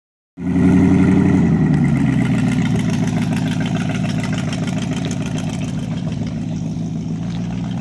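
Engine of a custom-built open car running as the car drives away. Its note drops a little about a second and a half in, then holds steady while slowly getting quieter.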